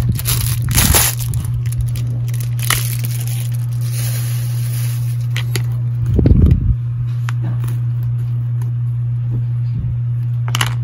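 Plastic handling sounds from a pocket-size chess board and sprues of plastic chess pieces: scattered clicks and scrapes, with a low bump about six seconds in. A steady low hum runs underneath.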